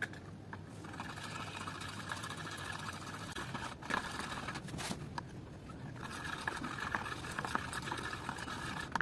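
Metal palette knife scraping and stirring thick paint against a plastic palette, a steady scratchy rasp that eases midway, where a couple of sharper clicks come.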